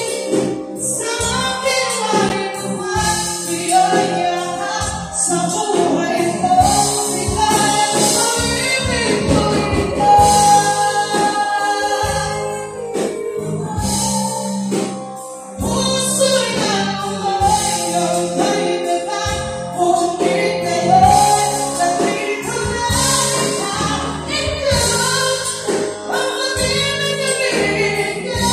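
Live band playing a song: women singing into microphones over electric guitar and a drum kit, with a steady beat.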